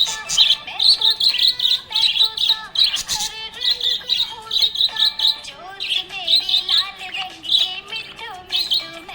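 Budgerigars chirping and warbling continuously: rapid, high twittering notes in quick runs.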